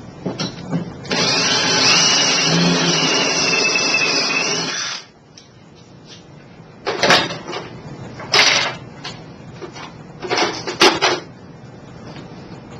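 Power drill spinning a countersink cutter into a freshly drilled bolt hole, running steadily for about four seconds and then stopping. Three short bursts of noise follow a few seconds later.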